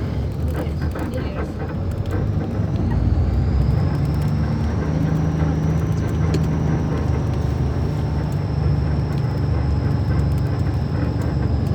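Diesel engine of a Mascarello Roma M4 bus on an Iveco chassis running, getting louder about three seconds in, with a thin, steady high whine above the engine note.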